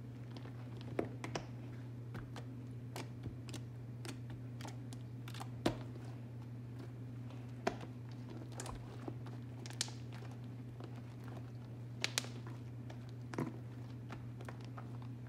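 Homemade slime being kneaded and squeezed by hand, giving irregular sharp clicks and little pops, a few of them louder, over a steady low hum.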